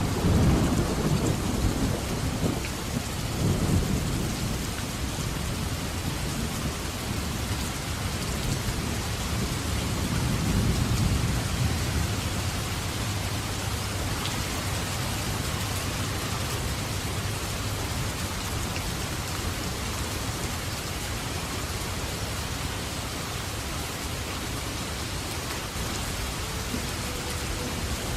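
Steady heavy rain with rolling thunder: a low rumble swells right at the start, again about four seconds in and once more around ten seconds in, then fades into the constant hiss of rain.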